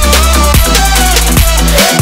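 Background electronic dance music with a deep bass and a steady beat.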